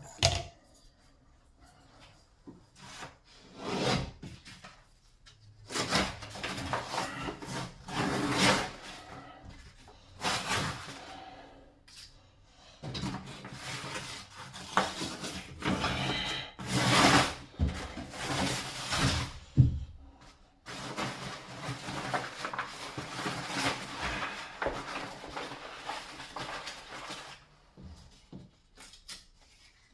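Irregular rubbing and scraping in bursts of a second or several seconds, with a sharp knock at the start.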